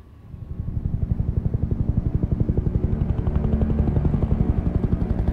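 A small helicopter flying overhead, its rotor beating in a rapid, steady pulse that fades in over the first second.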